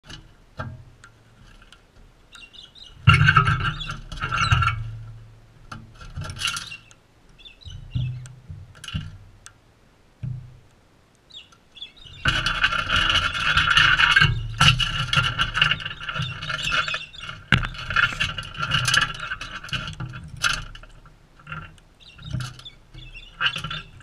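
Galahs screeching harshly close to the microphone, in a short burst about three seconds in and a longer run from about halfway through, with knocks and scrapes from the birds feeding at the seed dish.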